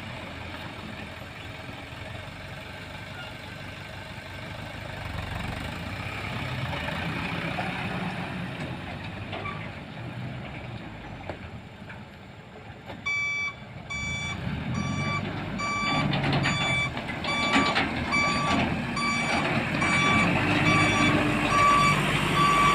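Heavy diesel machinery running. About halfway through, a backup alarm starts beeping steadily, about one and a half beeps a second, and the engine grows louder under work.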